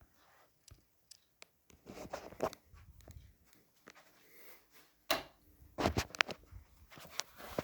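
Scattered handling noises: short rustles, clicks and knocks at irregular intervals, loudest in a cluster about five to six seconds in.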